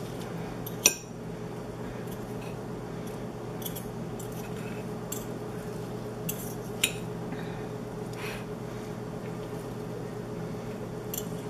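A metal fork shredding cooked chicken breasts on a plate, with scattered clinks and scrapes against the plate; the sharpest clink comes about a second in. A steady low hum runs underneath.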